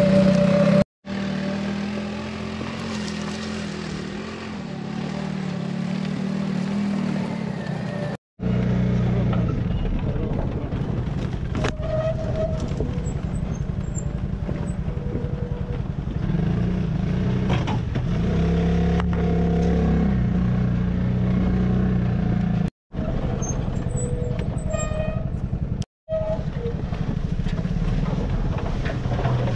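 Off-road buggy engine running as the vehicle drives over a rocky track, its pitch shifting up and down with the throttle. The sound drops out briefly four times.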